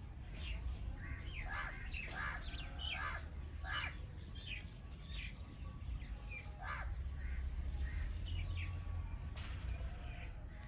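Several birds calling over one another: many short, sharp chirps and harsher calls, with a steady low rumble underneath.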